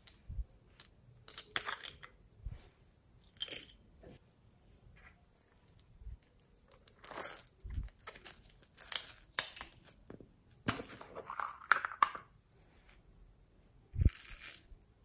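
Hands handling and squeezing plastic squishy toys over a bowl of slime. Irregular crackling, crinkling and crunching bursts come throughout, with a few short, soft thumps.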